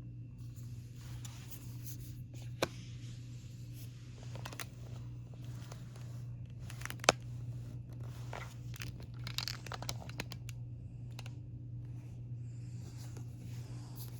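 Album packaging being handled and unwrapped: paper and plastic crinkling and tearing, with scattered clicks. The sharpest click comes about seven seconds in. A steady low hum runs underneath.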